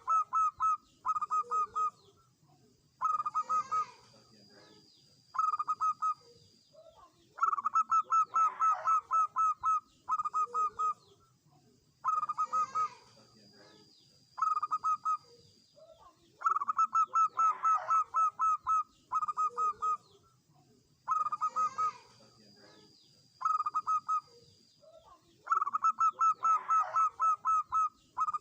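Zebra dove (perkutut) singing: phrases of rapid staccato cooing notes, longer runs alternating with short groups of a few notes, repeating every few seconds.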